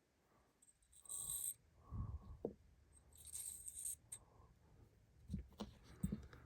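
Small metal parts of a Heritage .22 LR revolver handled during disassembly: faint scrapes and clinks, with a couple of sharp clicks near the end.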